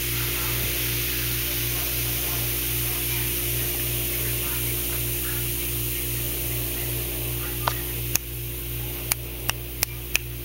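Baking soda and vinegar volcano fizzing: a steady hiss over a constant electrical hum. Near the end, about six sharp clicks.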